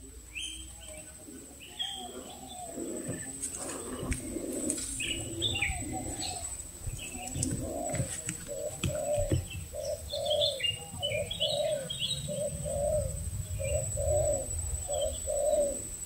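Spotted dove (tekukur) cooing: a long run of short, soft, arched notes repeating about twice a second, with small birds chirping higher above it.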